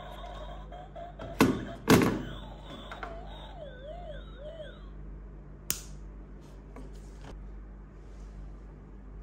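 Electric plastic tumbling monkey toy, overdriven at 8 volts from a bench power supply: two loud plastic knocks about a second and a half and two seconds in as it flips over against the table. A wavering, warbling electronic tone from the toy's speaker follows, then a sharp click near six seconds.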